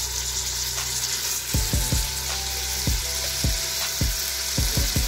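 Beef cubes sizzling as they are sautéed in a Philips multicooker's pot, stirred with a silicone spatula, giving a steady high hiss with scattered dull knocks, some in quick runs of three.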